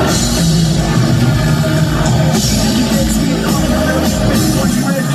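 Live industrial rock played loud by a band through a concert hall's PA, dense and continuous.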